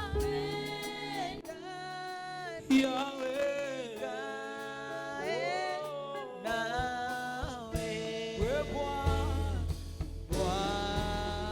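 Worship song sung in Swahili by the worship team and congregation, voices holding and gliding between long notes over instrumental accompaniment; the bass drops out for several seconds and comes back strongly near the end.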